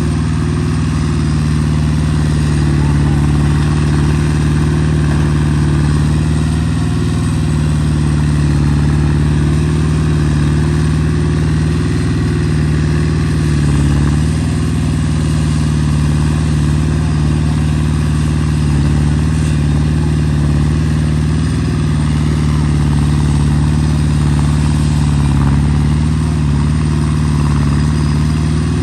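Excavator's diesel engine running steadily while working, its pitch dipping and recovering slightly every few seconds as the hydraulics take load.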